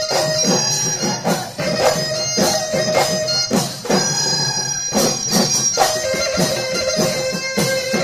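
Live Bihu music: dhol drums beating a quick, steady rhythm under a wind instrument holding long melodic notes.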